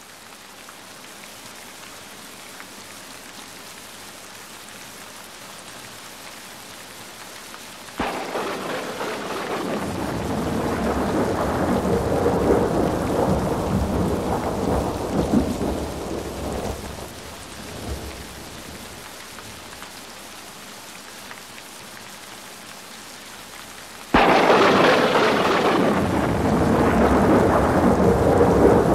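Steady rain, broken by two loud thunderclaps that start suddenly, about eight seconds in and again near the end, each rumbling on for several seconds.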